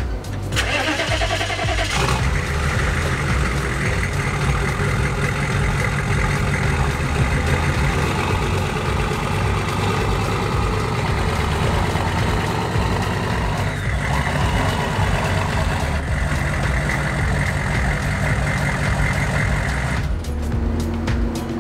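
Diesel engine of an old Chevrolet Suburban cranking and catching about two seconds in, then running steadily through its loud exhaust.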